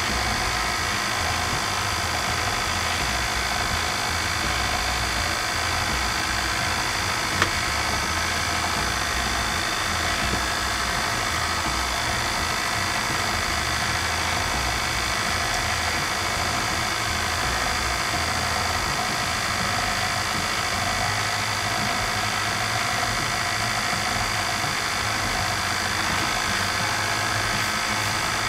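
KitchenAid stand mixer motor running steadily, driving its pasta sheet roller attachment as a sheet of dough is fed through the rollers. There is a single brief click about seven seconds in.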